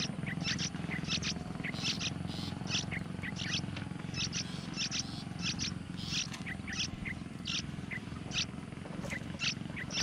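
Yellow-vented bulbul nestlings' begging calls: short high-pitched squeaks, two or three a second, over a steady low hum.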